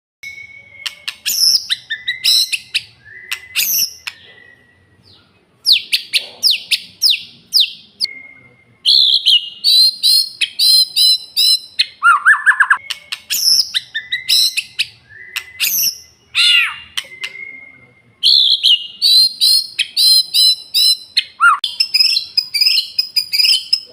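Male white-rumped shama singing loudly and continuously: long, varied phrases of clear whistles, rapid trills and sweeping notes, with a few short pauses between bursts.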